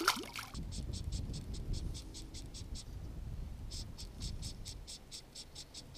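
A small crappie splashes into the water as it is released, then a fly reel's ratchet clicks evenly, about five clicks a second with a short pause near the middle, as line is pulled off it, over a low rumble.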